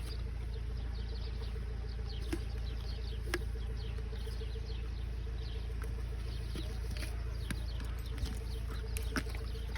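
Many small birds chirping faintly and continuously, over a steady low hum, with a few sharp clicks.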